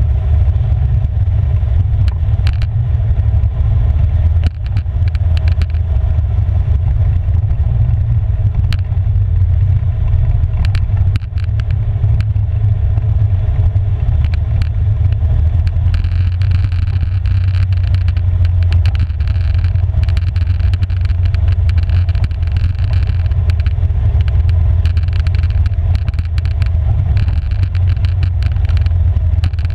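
Polaris 570 ATV's single-cylinder engine running steadily while riding a gravel trail, under a heavy low rumble, with scattered clicks and knocks from the gravel and the ride. The sound gets brighter about halfway through, and it dips briefly twice early on.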